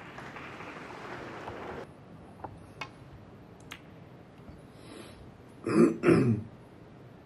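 A person clears their throat twice in quick succession, loudly, about six seconds in. Before it there are a few faint sharp clicks.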